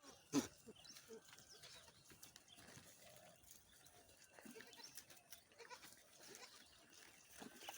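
Goats heard faintly, with a single sharp knock about half a second in as the loudest sound.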